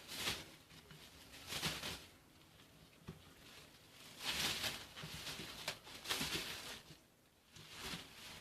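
Plastic bag rustling and crinkling in several short bursts, with quiet gaps between, as trimmed artichokes are handled in it.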